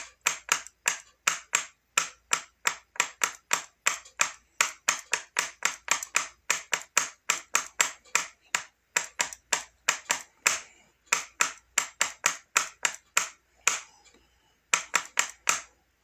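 A rapid series of sharp clicks or taps, about three a second and slightly uneven, pausing briefly twice near the end.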